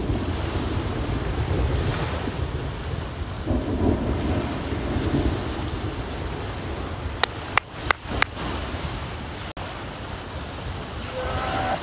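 Wind buffeting the microphone in a steady low rumble, with small Lake Michigan waves washing onto the sand. A few sharp clicks come about seven to eight seconds in.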